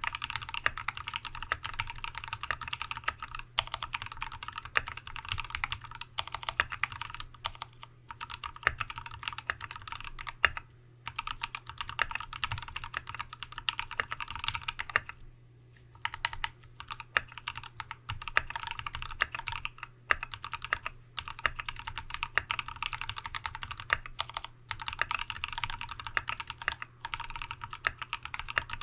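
Continuous fast typing on a TX75v2 custom mechanical keyboard with a brass plate, lubed Tealios V2 linear switches with Cherry top housings, and Dev/tty MT3 keycaps. The keystrokes come rapidly, with brief pauses about 11 seconds in and again around 15 seconds in.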